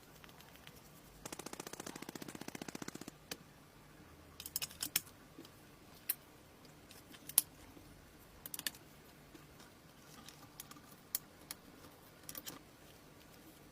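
A rapid mechanical rattle lasting about two seconds, then scattered sharp clicks and taps from tools or parts being handled.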